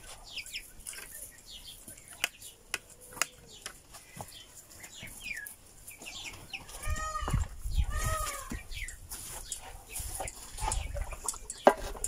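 Young ducks peeping with many short, falling chirps, and a couple of louder, lower calls about seven and eight seconds in, over a low rumble.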